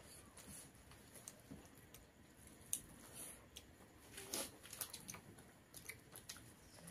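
Faint eating sounds as rice is eaten by hand: fingers squishing and mixing rice on plates, with quiet chewing and lip smacks heard as scattered soft clicks.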